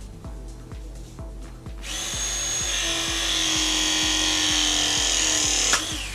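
Battery-powered ProPress tool pressing a copper 90 elbow onto copper pipe: its motor starts about two seconds in and runs steadily for about four seconds, dropping slightly in pitch as the jaws close, then stops with a click. Background music with a steady beat throughout.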